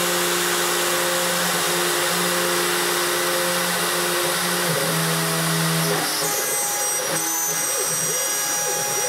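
The router spindle of a homemade CNC wood router is running, with its end mill cutting into a 10 mm aluminium (AlCuMg1) plate. It makes a steady, loud mix of cutting hiss and several whining tones, and the tones change about six seconds in.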